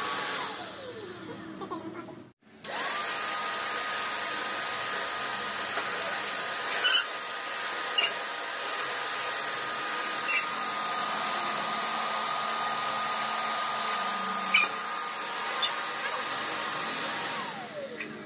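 Black+Decker 10-litre wet and dry vacuum cleaner's motor running with a steady whine. It spins down near the start, starts up again after a short gap, and runs evenly while small bits of debris click up the hose a few times. It winds down near the end.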